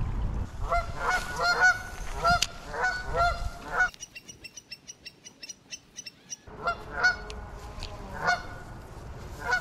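Geese honking over and over, a string of short calls. A pause in the middle carries only a fast run of light ticks.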